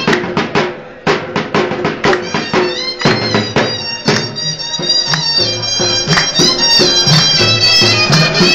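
Loud traditional dance music: a reedy wind instrument playing a wavering melody that bends up and down, over a quick steady drum beat.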